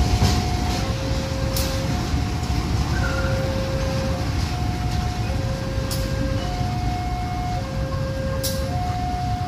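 Level crossing warning alarm sounding two alternating tones, a lower and a higher, each about a second long, over the low rumble of a diesel locomotive passing over the crossing.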